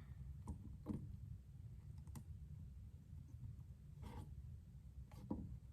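A few faint, scattered clicks and taps, about five in all and one slightly longer about four seconds in, over a low room hum: small hard objects being handled between edge-sharpness tests.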